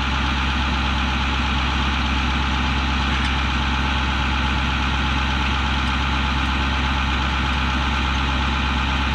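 An engine idling steadily, with an even, unchanging tone.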